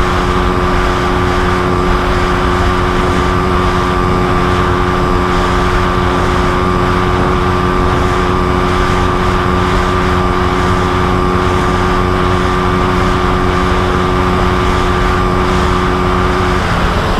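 Suzuki motorcycle engine, fitted with a Koso 30 mm flat-slide carburetor, running flat out at high speed, its note holding one steady pitch, over a loud rush of wind. The engine note breaks off just before the end.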